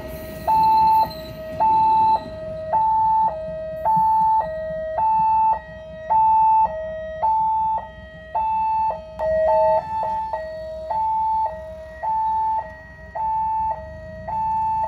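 Railway level-crossing warning siren sounding a steady two-tone alarm. It alternates evenly between a high note and a low note, each about half a second long, which signals that the crossing is closed to road traffic.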